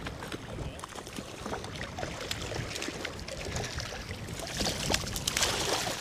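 Hooked rainbow trout thrashing and splashing at the surface of a flowing creek, loudest near the end, over a steady low rumble of wind on the microphone and the sound of the running water.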